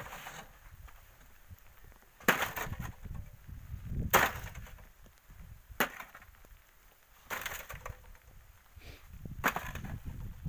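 Crunching scrapes of volcanic sand and gravel being dug out and tipped into a metal basin by hand and with a short digging tool, five strikes about one and a half to two seconds apart.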